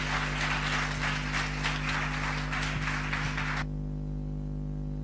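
Audience applauding at the end of a lecture, the clapping cutting off suddenly about three and a half seconds in, leaving a steady low hum.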